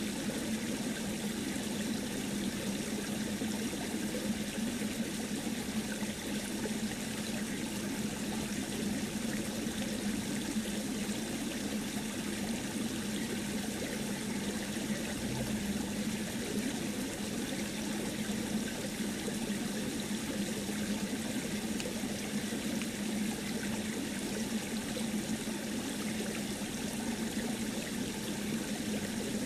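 Steady, unchanging rushing noise with a low hum underneath; no separate paper-folding sounds stand out.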